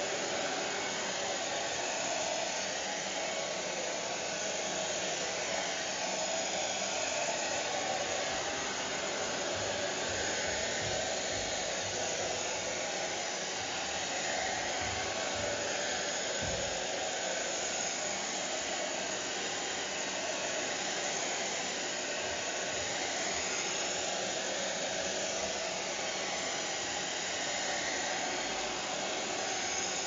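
Hair dryer running steadily: an even, unbroken rush of fan and airflow noise with no change in speed.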